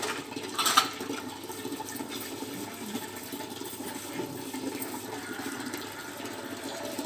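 Water running steadily while steel dishes are washed by hand, with a clatter of a metal utensil a little under a second in.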